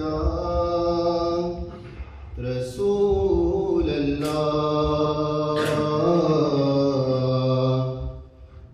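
A man singing an Urdu naat unaccompanied into a microphone, holding long, drawn-out notes that glide between pitches. He breaks briefly for breath about two seconds in and again near the end.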